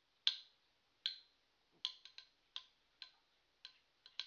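Two metal-wheeled Beyblade spinning tops clashing again and again as they spin against each other, giving short sharp metallic clinks at about two a second, unevenly spaced.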